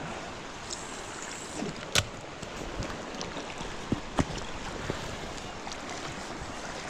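River water rushing steadily around a wading angler, with a few brief sharp knocks, the clearest about two seconds in and about four seconds in.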